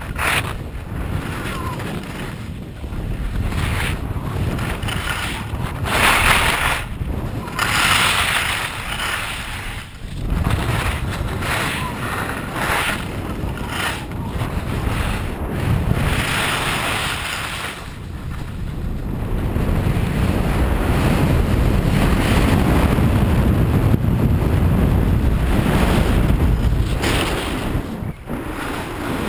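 Wind rumbling on a pole-mounted action camera's microphone during a ski descent. Over it, the hiss and scrape of skis on snow swells several times as he turns, and the rumble grows louder in the second half.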